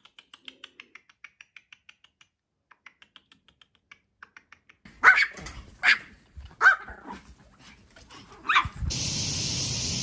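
Small dogs, Pomeranians, barking: four sharp barks over about three and a half seconds, after a run of faint rapid ticks at the start. A steady hiss comes in near the end.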